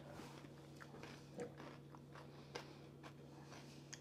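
Faint chewing of a mouthful of mango salsa, a few soft crunches and mouth clicks over a steady low hum.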